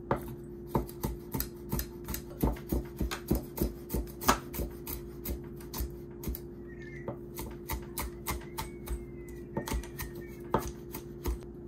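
Kitchen knife chopping herbs finely on a cutting board: a run of sharp knocks at about two to three a second, uneven in spacing.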